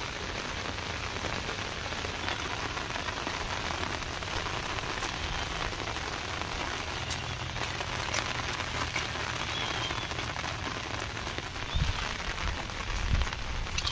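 Steady light rain falling, an even hiss with scattered faint ticks, and a few dull low thumps near the end.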